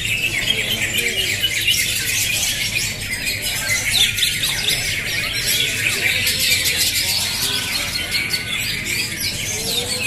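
Many caged cucak hijau (green leafbirds) singing over one another in a contest: a dense, continuous chorus of rapid chirps, trills and whistles.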